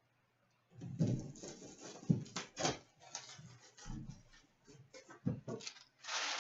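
Rustling, clicks and knocks of trading-card packaging being handled as a tin is opened, ending in a longer crinkling rustle.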